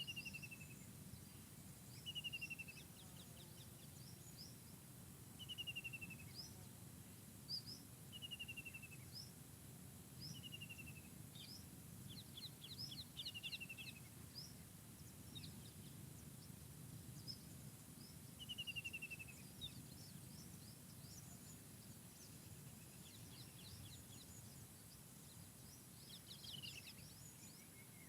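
Forest birds singing softly over a faint low rumble. One bird repeats a short, falling run of quick notes every few seconds, and other birds add brief high chirps throughout.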